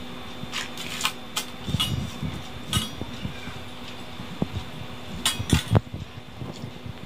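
A hand mixing rice on a stainless steel plate: scattered sharp clinks of rings and bangles against the steel and soft knocks of fingers on the plate, the loudest a little past five seconds in. Under it runs the steady hum of a pedestal fan.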